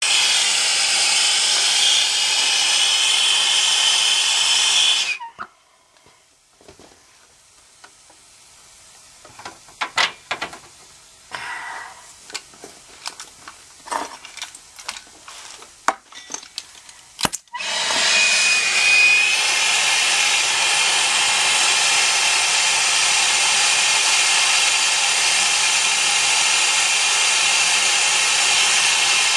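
Air-acetylene torch burning with a steady hiss while brazing a copper joint on an air-conditioner condenser coil. The flame cuts off about five seconds in, scattered clicks and knocks follow, and the torch hisses again from about eighteen seconds on.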